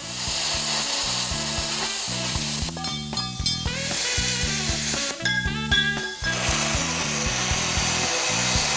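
Metal being cut with a plasma cutter and an angle grinder with a cutoff wheel, working through a Jeep skid plate. The cutting gives a harsh, steady hiss that eases off twice, with background music and a steady bass beat underneath.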